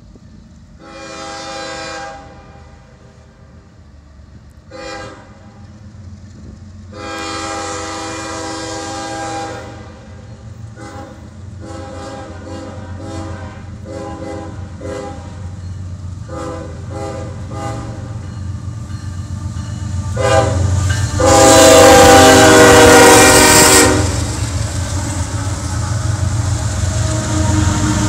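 CSX GE ES44AH diesel locomotive's air horn sounding a run of blasts on approach: a few long blasts, then a quick string of about a dozen short toots, then a very loud long blast as the locomotive draws alongside. Under the horn the rumble of the diesel engines and the heavy train builds steadily and carries on after the last blast.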